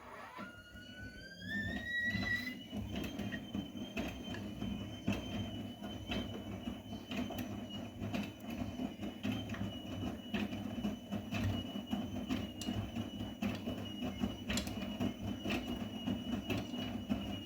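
Vestel CMI 97302 washing machine's motor whining as the drum speeds up. The pitch climbs over the first two and a half seconds, then holds steady over a low rumble, as in a spin.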